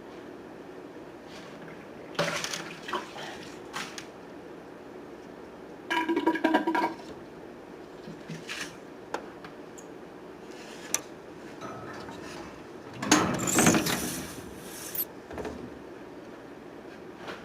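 Scattered knocks and clatter of fish-tank cleaning gear being handled, with a squeaky scrape about six seconds in and a longer burst of rushing, rattling noise about thirteen seconds in.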